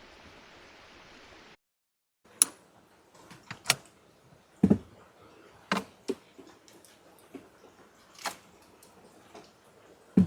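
River flowing steadily, cut off after about a second and a half; then a series of sharp, irregularly spaced clicks and knocks, about eight of them, the loudest around the middle.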